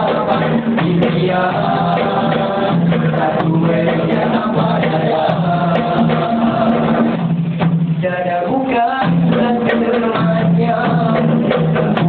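Male nasyid group singing in harmony into microphones, amplified through a PA, over a steady pulsing low beat.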